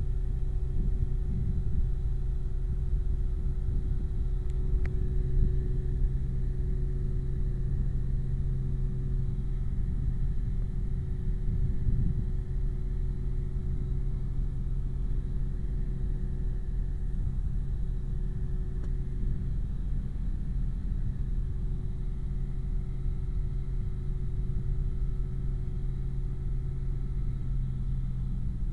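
Steady low rumble and hum of an idling locomotive, with a higher steady tone that fades out about two-thirds of the way through.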